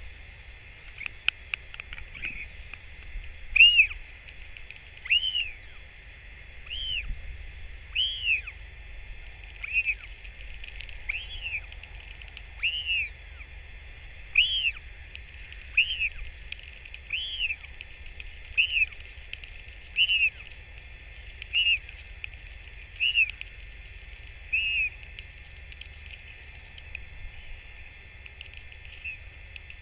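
A bird calling the same short rising-and-falling note over and over, about once every second and a half, for some twenty seconds before stopping.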